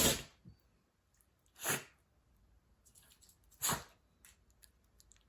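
A pet coughing in short, sharp bursts: one fading just at the start, then two more about two seconds apart, part of a run of repeated coughs.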